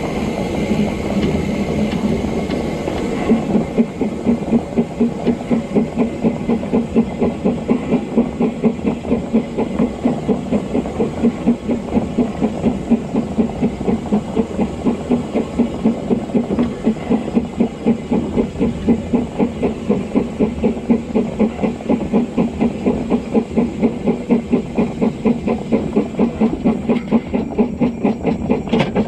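Narrow-gauge steam locomotive 'Tom Rolt' working along the line: a steady hiss of steam, then from about three seconds in an even, rapid rhythm of exhaust beats that keeps up to the end, with the train's running noise underneath.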